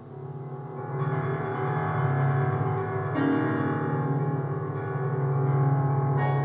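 Digital piano being played in a slow improvisation. Low bass notes are held under it, with fuller chords coming in about a second in and again about three seconds in.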